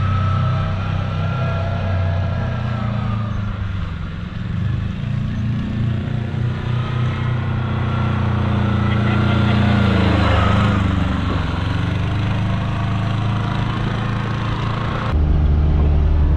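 Small off-road vehicle engine running while driving, its pitch rising and falling with speed. About 15 seconds in it changes abruptly to a steadier, deeper engine note.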